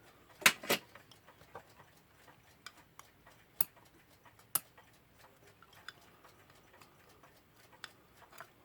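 Small metal parts of a mantel clock movement clicking and tapping as they are worked loose and handled with tools: a couple of sharp clicks about half a second in, two more in the middle, and faint irregular ticks between.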